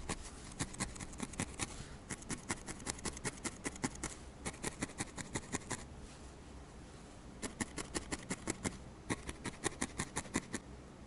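A felting needle stabbing into a ball of wool in quick runs of crisp pokes, about five a second. The pokes stop for a few seconds midway, then start again.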